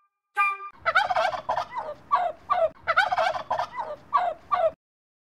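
Male turkey gobbling: two long runs of rapid, warbling gobbles back to back, stopping about half a second before the end.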